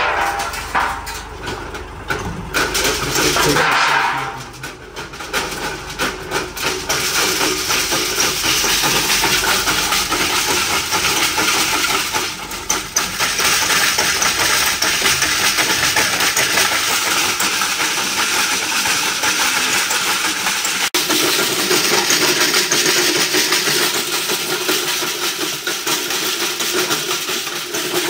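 Gravel rattling in a stack of test sieves being shaken for a sieve analysis, sorting the aggregate through 20 mm, 10 mm and 4.75 mm meshes. It is a dense, loud rattle, uneven at first and steady from several seconds in.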